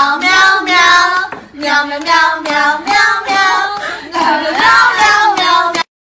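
A child singing a song in a high voice, in several phrases with short breaths between them, cutting off abruptly near the end.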